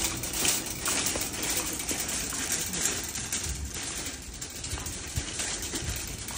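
Wire shopping cart rattling and clattering as it is pushed over paving stones, an irregular steady clatter with a few low knocks.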